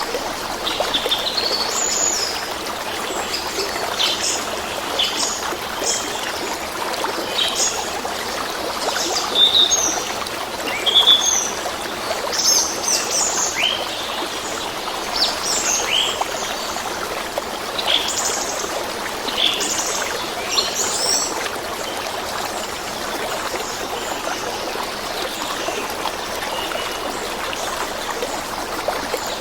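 A flowing stream or brook with steady running water, and small songbirds chirping and calling over it in short rising and falling notes, thinning out toward the end.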